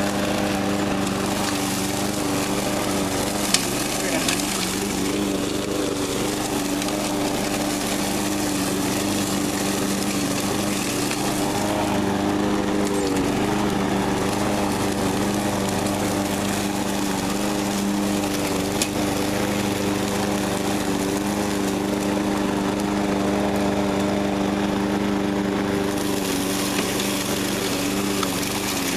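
Troy-Bilt TB360 walk-behind lawn mower running steadily while mowing dry leaves and throwing them out of its side-discharge chute. There is a sharp tick a few seconds in and another about two-thirds of the way through.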